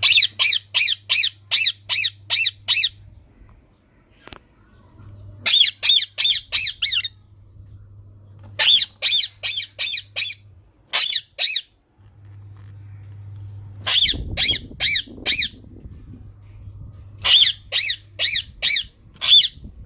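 Green parrot screeching in runs of quick, shrill calls, five to eight in a row at about four a second, with pauses of a second or two between runs.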